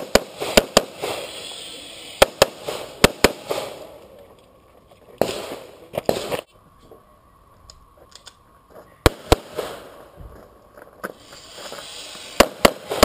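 Handgun shots fired in quick strings, several close pairs in the first three seconds, then a pause with a close crunch of footsteps on gravel, and more shots resuming from about nine seconds in, with a fast run near the end.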